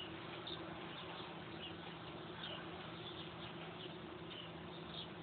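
Faint background: a steady low hum under short, high chirps that fall in pitch and repeat irregularly, about twice a second.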